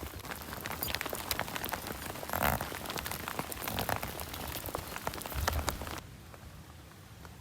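Rain falling, with many separate drop hits close by over a steady wash. About six seconds in the sound drops suddenly to a quieter, even rain hiss.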